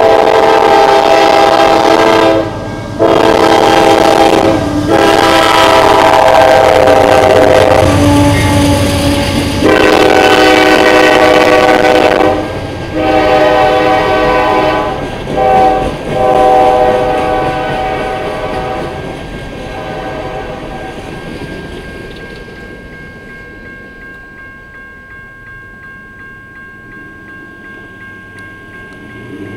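Diesel freight locomotive's air horn sounding a run of loud blasts, each one to three seconds long, ending about 17 seconds in, while the grade-crossing bell rings steadily. After the horn stops, the passing freight cars rumble and click over the crossing, fading as the train moves off.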